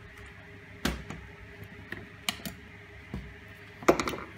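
Hand tools and a wooden part being handled on a wooden workbench: about half a dozen separate sharp knocks and metal clinks, with a quick run of clinks near the end as an adjustable wrench is taken up.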